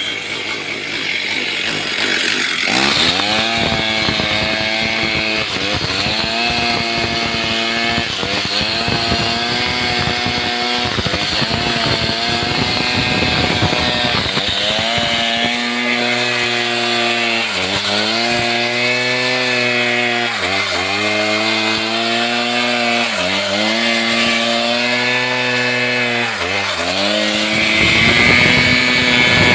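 Stihl chainsaw running at high revs while cutting jackfruit wood. Its pitch sags every few seconds as the chain bites under load, then picks back up.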